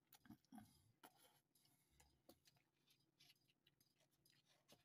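Faint sounds of a person eating instant cup noodles with wooden chopsticks: scattered small clicks and brief mouth sounds of chewing.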